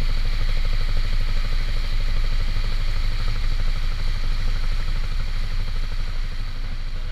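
Boat engine running steadily with a low, even hum and a rapid chugging beat, easing slightly near the end.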